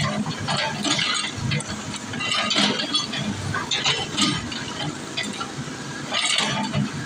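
Excavator demolishing a building: irregular crashing and clinking of breaking, falling debris, several bursts a second, over the low running of the machine's engine.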